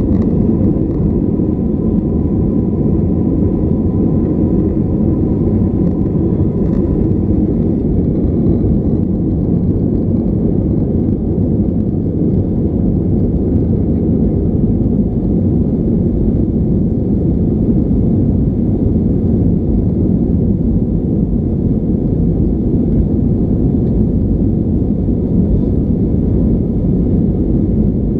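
Steady low rumble of engine and airflow noise inside the cabin of an Airbus A320-232 climbing out after takeoff, its IAE V2500 turbofans at climb power. A faint high whine fades out about seven seconds in.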